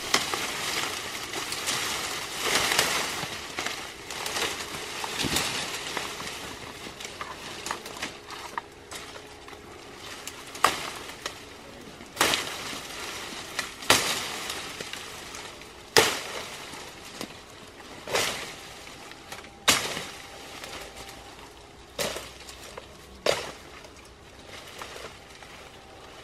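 Bamboo leaves and dry stems rustling heavily as they are pushed and pulled aside. Then about eight sharp cracks of bamboo stems and branches breaking, spaced a second and a half to two seconds apart.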